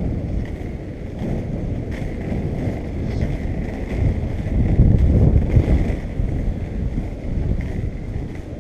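Skate wheels rolling steadily over an asphalt path, a continuous low rumble, mixed with wind buffeting the microphone.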